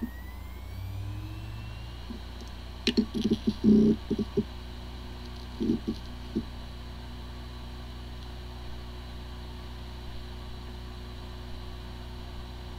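Hard disk drive spinning up with a rising whine, then two clusters of head clicks and knocks about three and six seconds in, before settling into a steady spinning whir. It sounds like a good drive, but this one has corrupted disk firmware and the computer cannot detect it.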